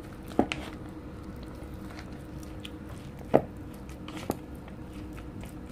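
Silicone spatula mixing wet minced-pork wonton filling in a plastic bowl: soft squishing, with a few sharp knocks of the spatula against the bowl, the loudest about three and a half seconds in.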